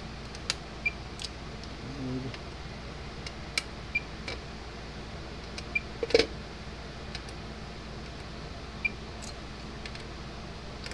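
Multimeter test probes clicking and tapping against a fence charger's circuit board as its diodes are tested, with a few very short high beeps from the digital multimeter and a louder knock about six seconds in, over a steady low hum.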